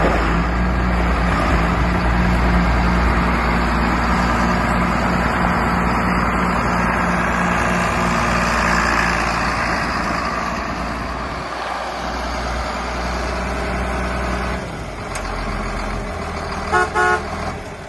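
John Deere 4455 tractor's six-cylinder turbo diesel running steadily as the tractor drives, the engine sound easing off a few seconds before the end. Near the end a horn gives two short toots.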